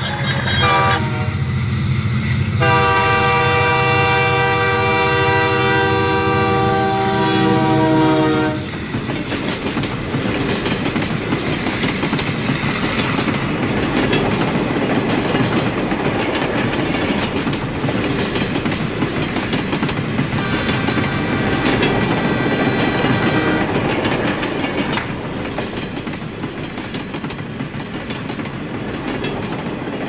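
Battery-operated toy train running on its plastic track, sounding a loud train horn for about six seconds near the start, then a steady clickety-clack rattle, with a shorter, fainter horn about two-thirds of the way through.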